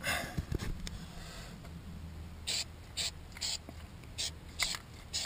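A Rust Check aerosol can spraying rust inhibitor. A hiss in the first second and a half, then a row of short spurts about half a second apart.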